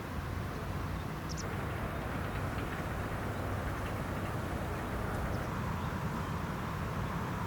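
Steady outdoor background rumble and hiss, with one faint short high chirp about a second in.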